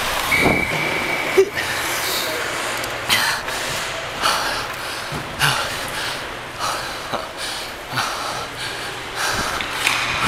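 Ice hockey play: skates scraping and swishing across the ice every second or so, with a few sharp clacks of sticks on the puck.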